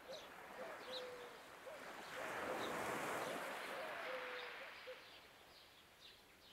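Faint bird calls on a shore: short, low, steady notes repeating irregularly about once a second, with a few thin higher chirps. A soft rush of shallow water rises in the middle and fades away before the end.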